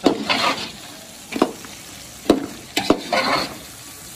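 A perforated metal skimmer spoon stirring meat, garlic-ginger paste and green chillies as they fry in ghee in an aluminium pot. About five sharp clanks of the spoon on the pot come at uneven intervals, with short scraping swishes and a low sizzle between them.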